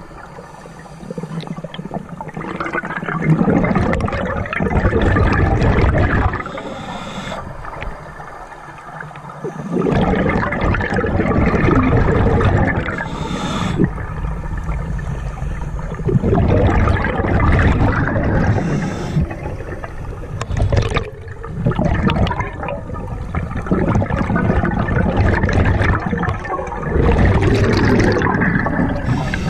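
A scuba diver breathing through a regulator underwater: bursts of bubbling, gurgling exhalation every several seconds, with quieter inhalation gaps between, heard through a camera's underwater housing.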